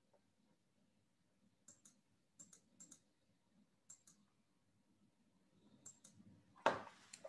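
Faint computer mouse clicks: several quick pairs of clicks spaced irregularly over a few seconds, with a short louder burst of noise near the end.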